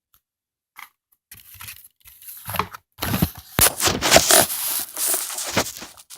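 Plastic toys and packaging being handled: rustling, scraping and crinkling with a few sharp clicks, faint at first and much louder from about three seconds in.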